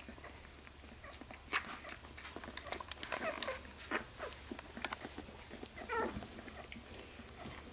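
Two-week-old golden retriever puppies nursing: a scatter of wet sucking and smacking clicks, with two short falling squeaks from the puppies, about three and six seconds in.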